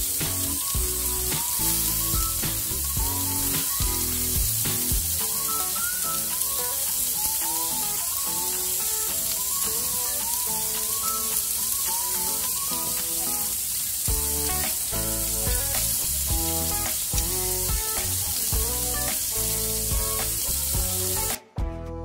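Pork belly, beef slices and shrimp sizzling steadily on a hot round grill pan, under background music with a steady beat; the sound cuts off abruptly near the end.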